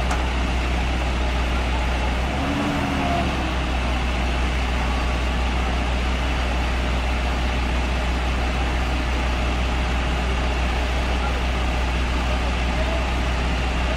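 Backhoe loader's diesel engine running steadily with a low, constant hum, and a brief voice or pitched sound about two and a half seconds in.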